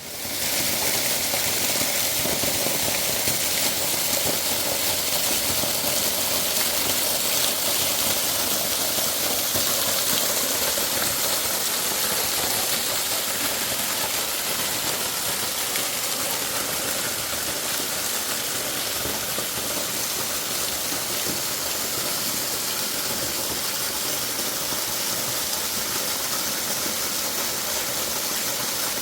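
Steady rushing roar of fast-flowing river water.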